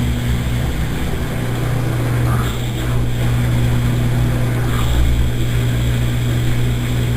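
Consul Maré Super 10 kg washing machine running with a steady, loud motor hum at one pitch.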